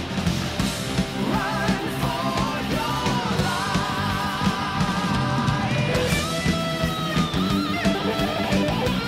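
Rock music with electric guitar, drums and singing.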